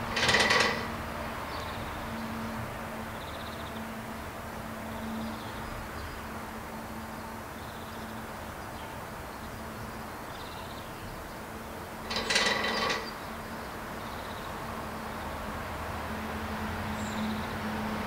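Male great spotted woodpecker drumming on the iron fittings of a metal pole: two short, very fast rolls of strikes, one at the start and one about twelve seconds later, each ringing like struck metal. A steady low hum runs underneath.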